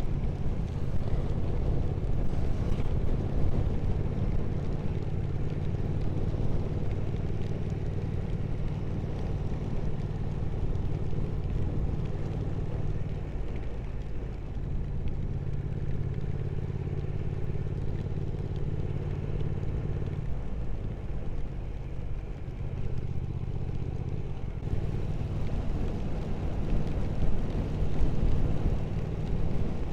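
Triumph Speed Twin 1200's 1200 cc parallel-twin engine running steadily at cruising speed, with a constant rush of wind and road noise. The engine note drops briefly a few times, around the middle and again after about 20 and 24 seconds, as the throttle eases or the bike shifts gear.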